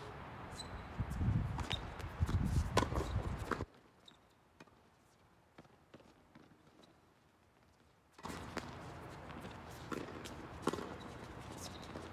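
Tennis balls struck by rackets and bouncing on a hard court during a doubles rally: scattered sharp pops and knocks. Two stretches of low rumbling noise cut in and out abruptly, the first and loudest in the opening few seconds, the second starting past the middle.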